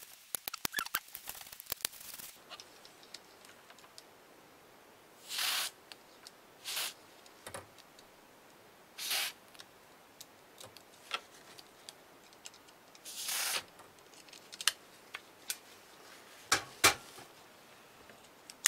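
Cleaning the mechanism of a Brother KH801 knitting-machine carriage: a quick run of small clicks, then four short rasping rubs and scattered single clicks as the dirty parts are worked. The dirt on the parts is taken to be why the carriage would not knit.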